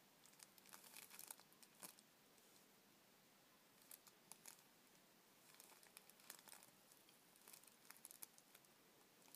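Faint scratching and rustling in several short spells as a young kitten paws and scrabbles at the edge of a plastic litter tray of crumbly litter.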